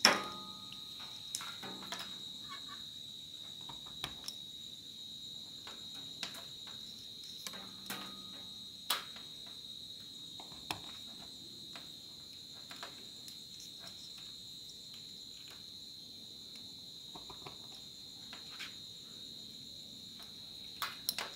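Steady high-pitched chirring of insects, with scattered small clicks and knocks; a sharp click right at the start is the loudest sound.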